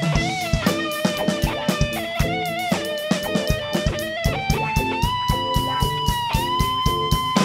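Live rock band playing: a steady drum kit beat under electric guitar and bass, with a lead line of long held notes that bend and waver.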